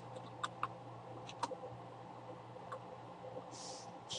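A few faint, scattered clicks of computer keys, a couple of seconds apart, over a steady low hum.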